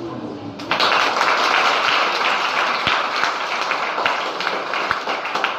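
Audience applauding, breaking out suddenly less than a second in and carrying on as a dense patter of claps.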